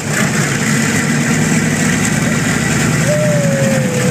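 The B-29 Superfortress's Wright R-3350 eighteen-cylinder radial engines idling during start-up, a steady heavy chugging drone. About three seconds in, a thin whine joins it and slides slightly down in pitch.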